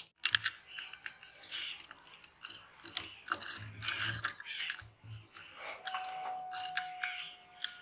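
Irregular clicks, taps and scraping of a steel hand tool against the metal mounting bracket and casing of an old sewing machine motor as it is handled and worked on.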